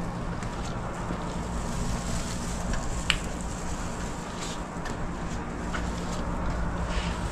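Steady low machine hum with an even wash of air noise, and a few faint clicks, the sharpest about three seconds in.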